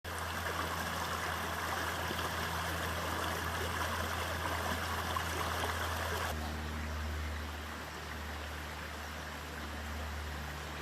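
Flooded creek water rushing and splashing in a steady hiss. About six seconds in it changes abruptly to a duller, quieter rush over a low steady hum.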